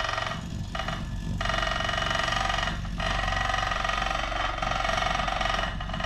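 Homemade electric vibrating plate compactor running as it is walked over loose asphalt crumb, packing it down: a steady, fast buzzing rattle that drops out briefly a few times in the first three seconds.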